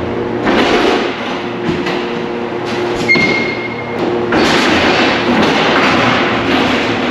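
Electric pallet truck working at a warehouse loading dock: bursts of rumbling and clattering as it moves loads, over a steady machine hum, with one short beep about three seconds in.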